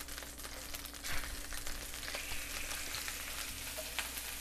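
Pork tenderloin searing in a hot skillet of olive oil, sizzling steadily with small crackles as it browns.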